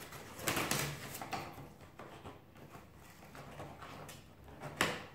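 Cardboard advent-calendar compartment being opened and a product pulled out: scraping and rustling handling noise with a few sharp knocks, the loudest near the end.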